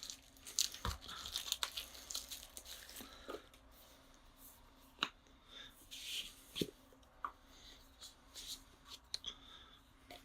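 Packaging being opened by hand: intermittent rustling and tearing with scattered small clicks and taps, busiest in the first few seconds.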